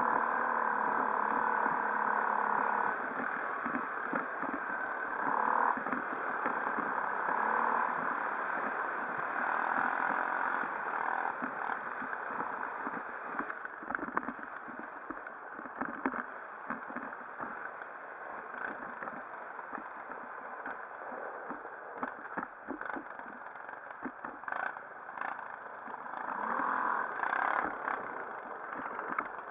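Quad bike (ATV) engine running during a ride, with a steady engine note for the first few seconds, then a rougher, noisier sound with many short knocks.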